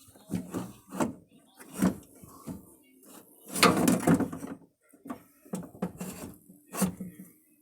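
Car door window parts being handled and fitted: a series of short knocks and clunks, with a longer, louder rattling clatter about halfway through.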